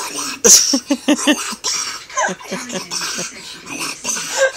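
A young boy's voice: a sharp, breathy cough-like burst about half a second in, then a quick run of short laughing, wordless vocal sounds.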